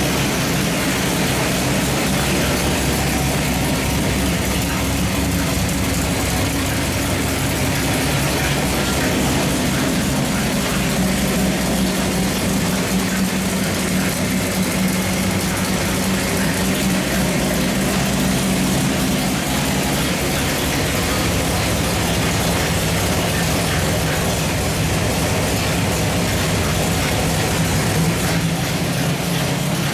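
A 549-horsepower Chevrolet small-block 383 stroker V8 running loudly on an engine dynamometer, holding a steady speed, with the mechanical clatter of the engine and its exhaust.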